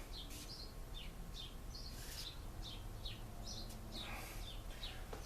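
A bird chirping over and over, short falling notes two or three times a second, over a low steady hum.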